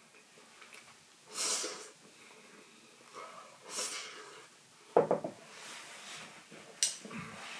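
Person eating hotpot: two short breathy slurps or sniffs, then a sharp knock about five seconds in and a shorter click near the end.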